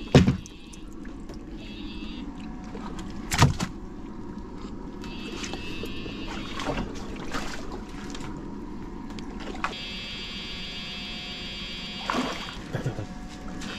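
Electric fishing shocker buzzing with a high-pitched tone that switches on and off, over a steady low rumble. Two loud sharp knocks, one just after the start and one about three and a half seconds in.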